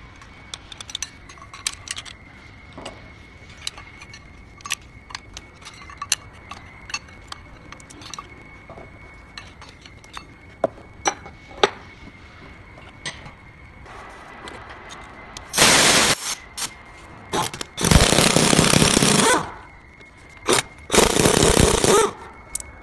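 Steel gear parts clinking and knocking as planetary gears are handled and lifted out of the gearbox housing, then a pneumatic impact wrench hammering in three bursts near the end, about a second each, undoing a nut inside the final drive.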